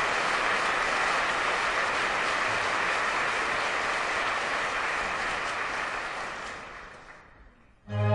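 Opera audience applauding steadily, the applause dying away about seven seconds in; the orchestra comes in just at the end.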